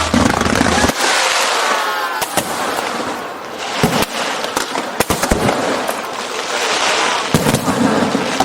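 Aerial fireworks display going off: a steady crackling haze of bursts with sharp bangs scattered throughout, and a few falling whistles about a second in.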